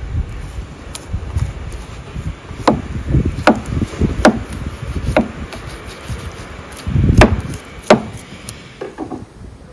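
Wild boar meat being chopped on a wooden board: a run of sharp chops about a second apart, with duller heavy thuds between them.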